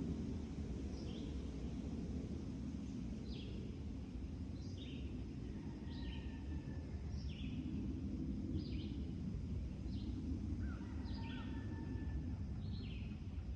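Songbirds chirping at dawn, with short falling chirps repeating about once a second and a few faint held whistles, over a steady low rumble.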